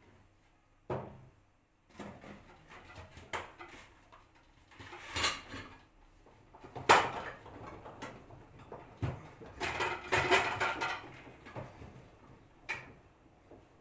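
LG direct-drive front-loading washing machine on a cold sportswear cycle, its drum turning a load of bags in soapy water. The load tumbles with irregular clunks, rattles and swishes, the sharpest knock about seven seconds in and a busy spell of clatter a few seconds later.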